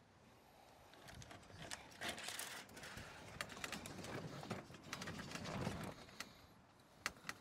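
Club Car golf cart rolling slowly backward down aluminum folding loading ramps: a run of light clacks and knocks from the tires and ramps, with a low rumble, until it comes off onto the ground a little after the middle.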